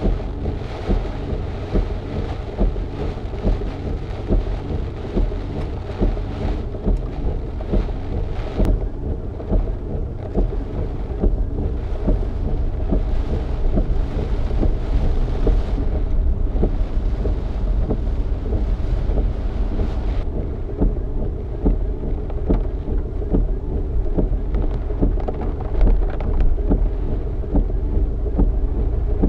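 Inside a car driving through cyclone rain and wind: a steady engine and road rumble, with rain and wind noise on top. The higher hiss thins out about twenty seconds in.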